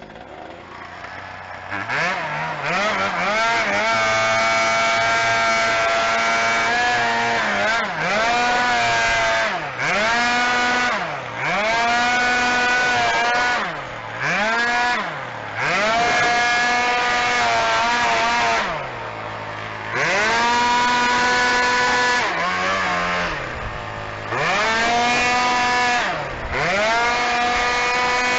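Gas-powered blower's small engine revved up and down: it comes up to speed about two seconds in, then is throttled back to idle and opened up again over and over, every couple of seconds, while blowing debris out of sawmill parts.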